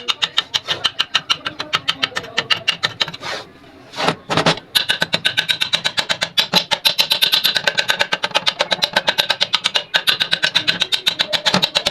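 Old sewing machine running, its mechanism ticking in a fast, even rhythm of several clicks a second. It stops briefly about three seconds in, then runs again.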